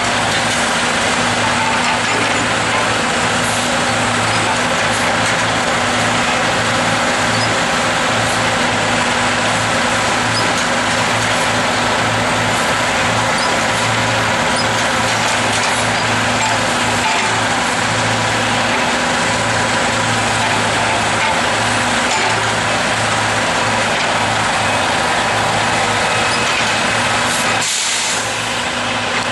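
Diesel logging truck running steadily under way, engine hum over heavy road and wind noise. Near the end the engine note drops briefly and a short hiss sounds.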